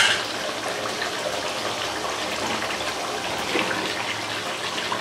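Thick chicken curry gravy simmering and bubbling in a pot on the stove, a steady watery hiss with a few faint pops.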